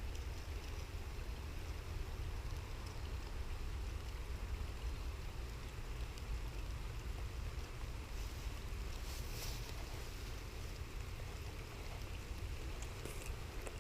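Wind buffeting the microphone, a steady low rumble, over an even hiss of light rain on the river.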